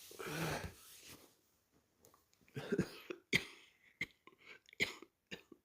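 A person's drowsy, breathy groan, then a few short, sharp hiccups in the second half.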